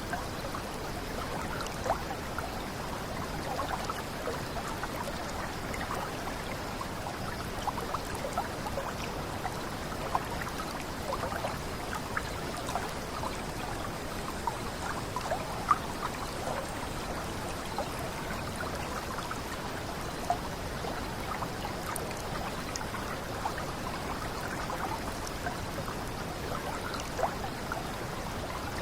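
Water running down a small cascade: a steady rush with many small splashes and plops, a few of them standing out louder.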